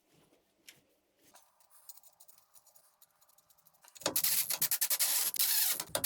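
A few faint ticks, then about four seconds in a rapid, rough rasping of hand-tool work on the front axle spindle starts, with the footage sped up.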